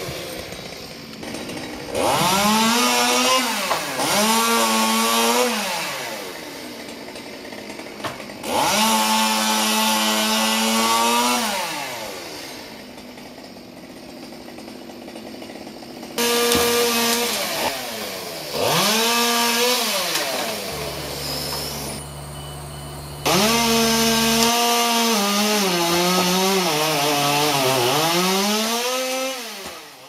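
Two-stroke chainsaw cutting willow branches, revving up to full throttle for cuts of a few seconds each about six times and dropping back to idle between them, its pitch sagging as the chain bites.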